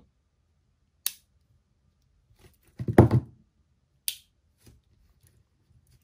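Swiss Army pocketknife tools snapping shut on their back springs. There is a sharp metallic click about a second in, a louder clack with a short ring near the middle, and another click about four seconds in.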